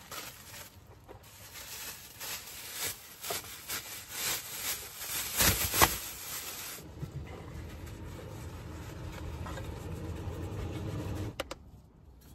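Paper towel rubbing and scraping over dishes as they are wiped clean, in many short strokes. About seven seconds in, a steady low rushing sound takes over and stops abruptly near the end.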